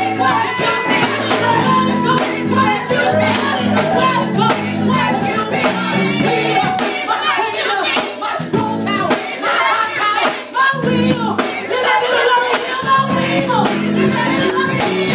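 Live gospel music: women singing over keyboard chords with steady shaken percussion. The low chords drop out for a few seconds about eight seconds in while the singing and percussion carry on.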